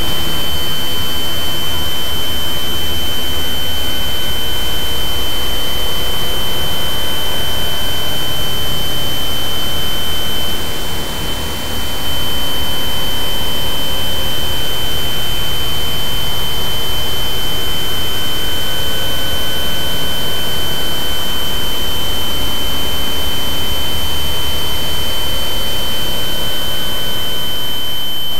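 Synthesized healing-tone beat: a steady, high electronic tone held over a loud, even hiss and a low hum. It does not change, apart from a brief dip in level about eleven seconds in.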